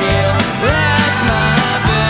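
Rock song playing: a singing voice over a steady drum beat.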